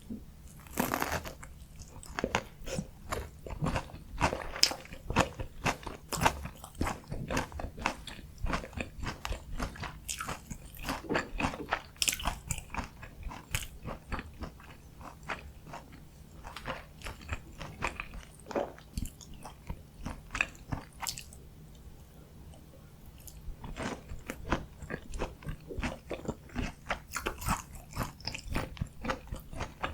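Close-miked crunching bites and chewing of a breaded, deep-fried Korean pork cutlet (donkkaseu) topped with kimchi and cheese: dense crisp crackles from the fried crust, easing off briefly about two-thirds of the way through before the crunching picks up again.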